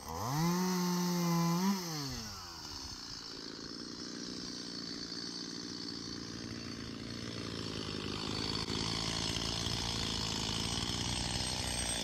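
Two-stroke chainsaw running at high revs for about two seconds, with a brief rise in pitch before it drops back to idle. It then idles steadily.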